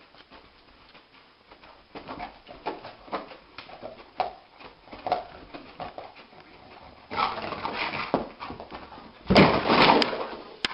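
A sleeping dog dreaming, giving a string of short muffled yips and whimpers as its legs paddle. About seven seconds in comes a rustling stretch, then about nine and a half seconds in a loud thumping scramble, the loudest thing here, as the dog jerks awake and jumps to its feet.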